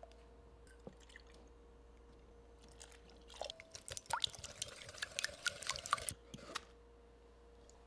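Liquid dripping and splashing with small sharp clicks, packed into about three seconds in the middle, over a faint steady hum.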